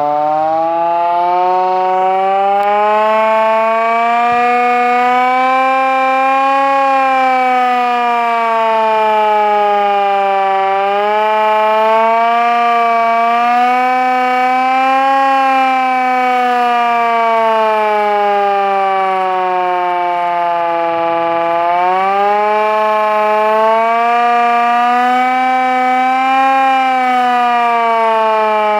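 Klaxon air raid siren wailing loudly, one steady note whose pitch rises and falls in slow swells about every ten seconds.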